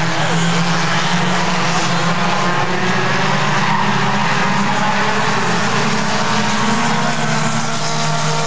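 A pack of compact Bumblebee-class stock cars racing on an asphalt oval track, their engines droning together steadily with overlapping tones as the cars circulate.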